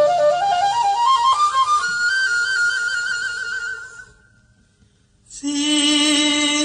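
Recorded Thai luk thung music: a flute-like wind instrument plays a melody that climbs in steps to a long held note, which fades out about four seconds in. After about a second of near silence, a new piece starts with a loud sustained note.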